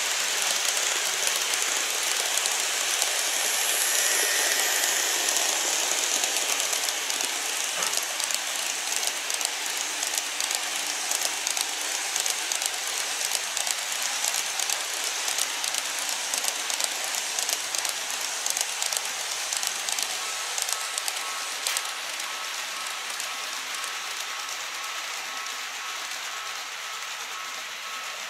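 Model train wheels rolling over the layout's track: a dense rattling hiss full of tiny clicks from the rail joints, slowly fading near the end as the cars move away.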